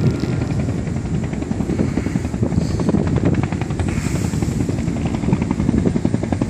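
Helicopter passing overhead, its rotor beating in a rapid, steady pulse.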